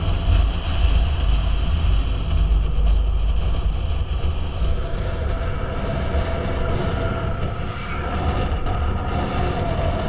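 Motorcycle engine running steadily at road speed, its drone drifting a little in pitch, under a heavy low rumble of wind on the microphone.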